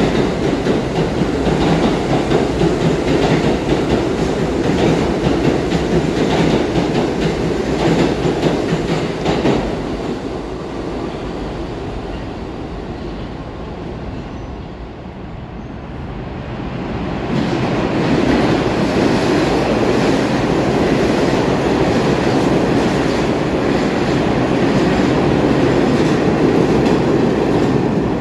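New York City subway train running through a tunnel: a steady rumble of wheels on rail with clickety-clack from the rail joints. It grows quieter for several seconds a little before the middle, then loud again.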